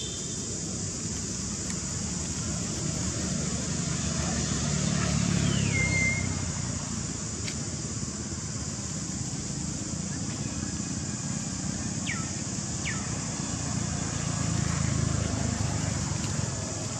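Outdoor ambience dominated by a low rumble of passing motor vehicles, swelling twice, under a steady high hiss. A few short whistled calls glide downward, one about six seconds in and two close together later.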